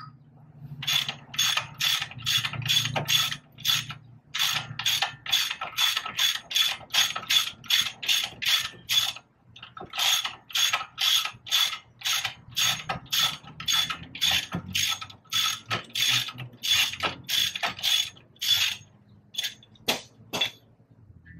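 Hand ratchet wrench clicking in quick repeated strokes, about two to three a second, as a bolt is turned on the front suspension of a car; the strokes pause briefly near the middle and thin out near the end.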